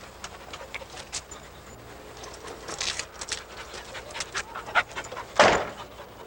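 A dog panting in short, quick, noisy breaths, with one louder burst about five and a half seconds in.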